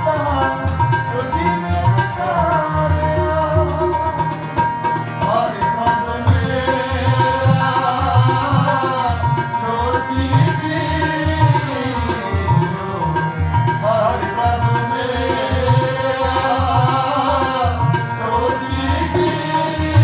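Gurbani kirtan: a tabla keeps up a steady rhythm under a harmonium and a voice singing long, gliding phrases.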